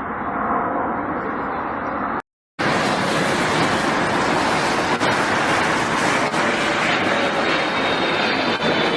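Steady roar of airplane engines, muffled at first; after a brief cut to silence about two seconds in, a louder, brighter rush of engine and air noise continues steadily.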